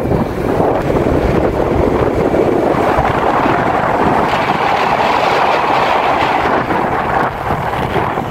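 Wind buffeting the microphone of a moving vehicle travelling along a road, with a steady low rumble of road and engine noise underneath.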